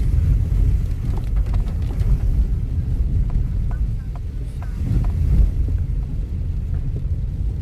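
Steady low rumble of a car driving along a wet road, heard from inside the cabin, with a few faint short squeaks in the middle.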